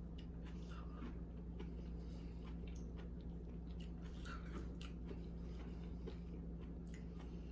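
Faint chewing of a mouthful of baked spaghetti squash, with scattered soft clicks, over a steady low hum.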